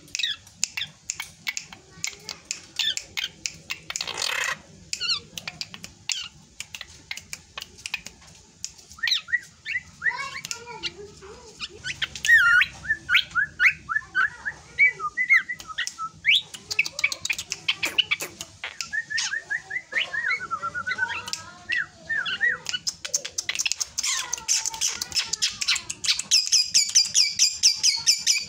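Young drongo singing a varied song of sharp clicks, short whistled notes and chatter. About four seconds before the end it breaks into a fast, even trill of high repeated notes.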